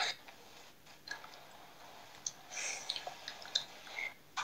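Quiet scattered small clicks and short soft noises, a few each second, over faint hiss.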